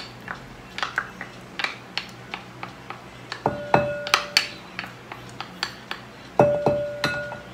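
Wooden spatula tapping and scraping against a small glass bowl, knocking mayonnaise out in repeated light taps. Two harder knocks, a little before halfway and near the end, leave the glass bowl ringing at a clear pitch for about a second each time.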